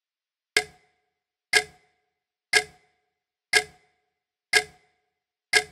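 Clock ticking sound effect: six sharp ticks, one a second, timing the pause for writing the dictated spelling word.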